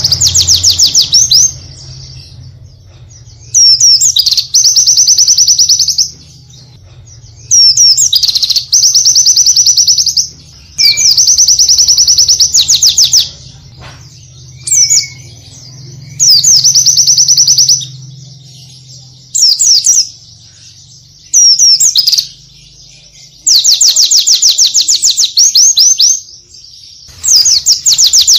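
White-eye (pleci) singing rapid high-pitched trills in bursts of one to three seconds with short pauses, mixed with quick sweeping notes, over a faint low hum.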